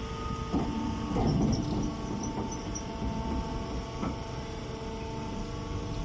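Hydraulic baler's electric motor and pump running with a steady hum, with some irregular handling noise about a second in and a short knock near four seconds in.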